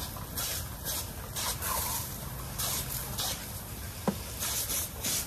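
Garden hose spraying water in a thin jet that hisses in short, uneven bursts as it splashes onto wet patio pavers.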